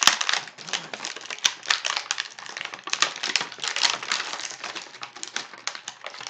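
Plastic action-figure packaging crackling and clicking as a small accessory is worked free of its tray: a dense, irregular run of rapid clicks and crinkles.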